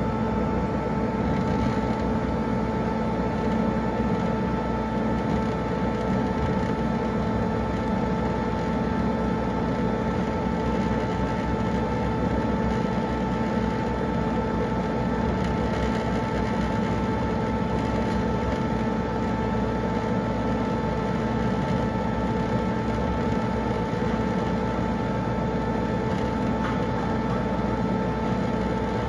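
Laser cutter running as it cuts a wooden sheet: a steady mechanical drone with a steady whine over it.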